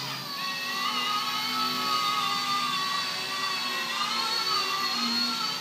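Mini electric RC helicopter's motors and rotors whining steadily in flight, the pitch wavering slightly up and down as it manoeuvres.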